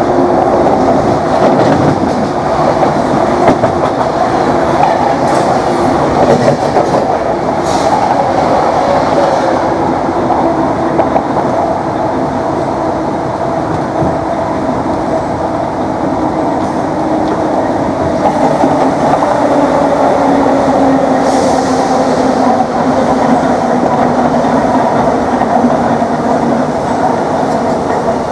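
Class 321 electric multiple unit heard on board at speed, loud and steady: its DC traction motors whine over the rumble and rattle of the running train, with a few brief knocks of the wheels over rail joints.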